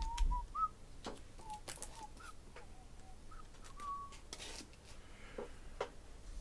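Soft, broken whistling under the breath, short notes with small slides in pitch, with scattered light clicks.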